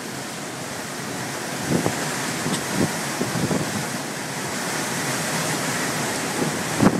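Strong wind rushing steadily, with gusts buffeting the microphone in low thumps and growing a little louder through the clip.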